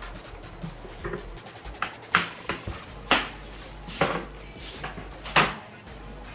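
Hard plastic ice chest lid being shut and handled: a handful of sharp plastic knocks and clacks spread over a few seconds, the loudest near the end.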